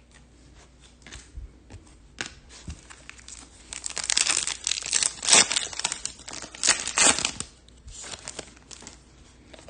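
A foil trading-card pack wrapper crinkling and tearing as it is opened by hand, in a cluster of loud rustles from about four to seven and a half seconds in, with lighter handling noise around them.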